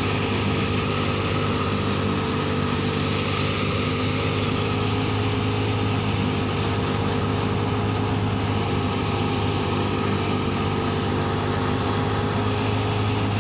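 Wheat thresher running steadily while sheaves of wheat are fed in, separating the grain from the chaff, with an even mechanical hum.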